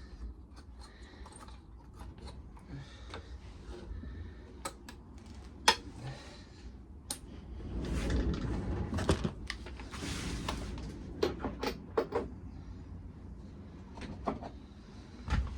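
Tools and metal engine parts being handled while taking apart a lawnmower engine: scattered clinks and knocks, with a louder stretch of rattling about eight to ten seconds in.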